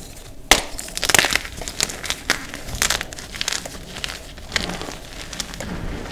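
A fresh block of gym chalk snapped and crushed between the fingers. There is a sharp crack about half a second in, then a run of dry, crunchy snaps as the pieces break up. Near the end it turns into softer, powdery crumbling.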